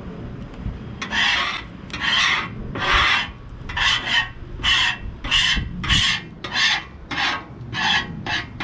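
Metal spatula scraping across the greasy top of a hot flat-top griddle, in about a dozen quick rasping strokes of roughly one and a half a second, beginning about a second in.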